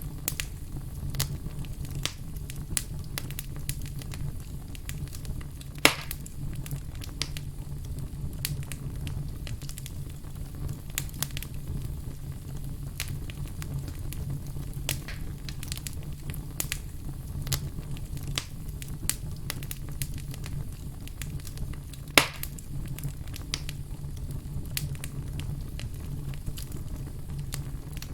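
Logs burning in a fireplace: frequent small crackles over a steady low rumble. Two much louder pops come about six seconds in and again about twenty-two seconds in.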